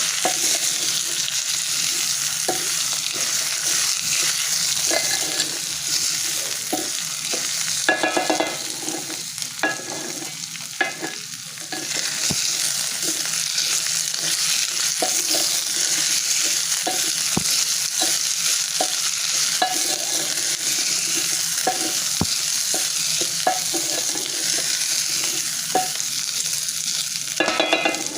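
Raw rice frying in hot oil in a sufuria pot, sizzling steadily, while a spoon stirs the grains with scattered clicks and short scrapes against the pot.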